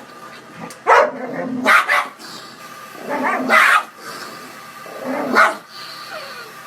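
A dog barking about four times, with gaps of a second or more between the barks.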